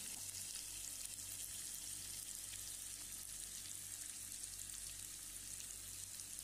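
Masala-coated mullet steaks shallow-frying in hot oil on a low flame: a steady, soft sizzle with fine crackles.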